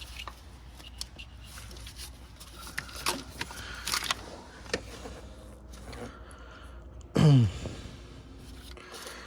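Scattered light clicks, taps and scrapes of hand work on engine parts, with a short loud voiced sound from the worker about seven seconds in, falling in pitch.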